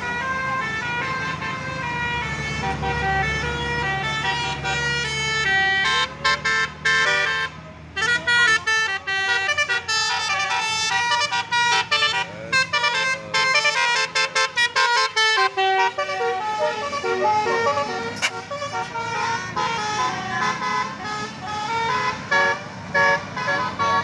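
A bus's multi-note telolet horn playing a quick melody in stepped notes, over the low rumble of the bus's engine. From about eight seconds in, the notes come as short, separate blasts.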